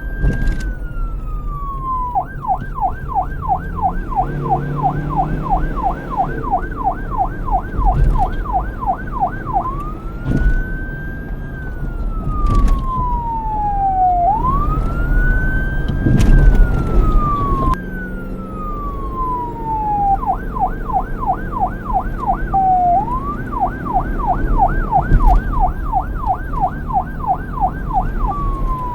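Police car electronic siren switching between wail and yelp. Slow rising and falling wails of about four seconds each give way about two seconds in to a fast yelp of about three sweeps a second. The wail returns near the middle, and the yelp again later, over a low rumble.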